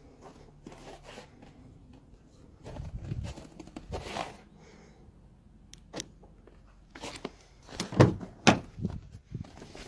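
Nissan Rogue car door handle pulled and the door opened: two loud thunks half a second apart, after a couple of sharp clicks a few seconds earlier.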